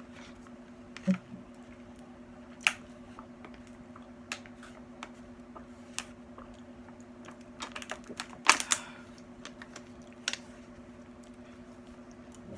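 Eating at a table: irregular light clicks and taps from handling food, utensils and containers, with a cluster of louder ones about eight and a half seconds in, over a steady low hum.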